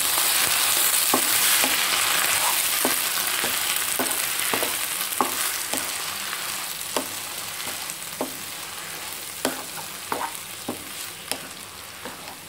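Agathi (sesbania) leaves sizzling in hot oil in a kadai as they are sautéd and turned with a spatula, with sharp irregular clicks of the spatula against the pan, about one a second. The sizzle slowly dies down over the stretch.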